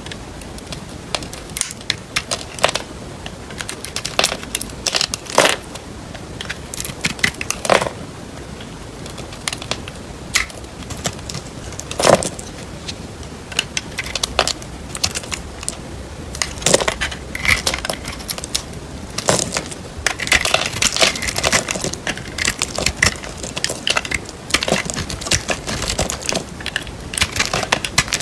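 A knife cutting through dry bar soap: an uneven run of crisp crunches and cracks, thickest about two thirds of the way through.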